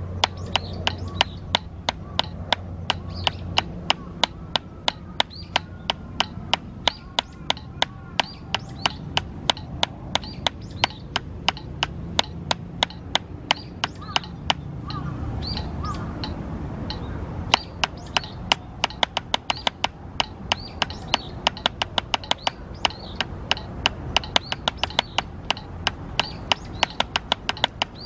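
Wooden drumsticks striking a drum practice pad in steady, evenly spaced single strokes, a few per second, with a short break about sixteen seconds in.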